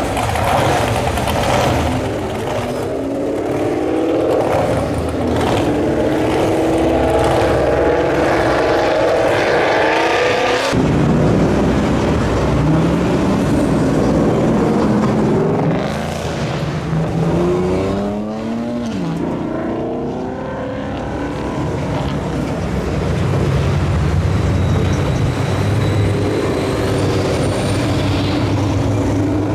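Cars driving past one after another, their engines revving and accelerating, with exhaust notes that climb in pitch through the gears several times. The sound changes abruptly about a third of the way in.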